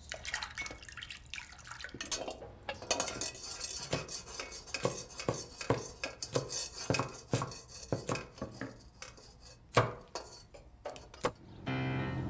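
Kitchen work clatter: metal pots, ladles and utensils knocking and clinking in quick, irregular strikes, with one louder clank about ten seconds in.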